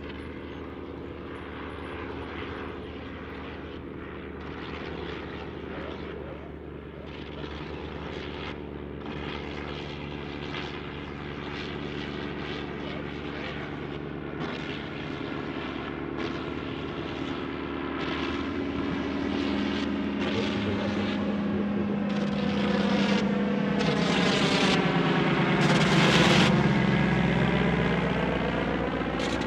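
Fokker Dr.I triplane and Fokker E.III flying past together, their propeller engines droning louder as they close in. The sound peaks about 26 seconds in, and the engine note drops as they pass and start to fade.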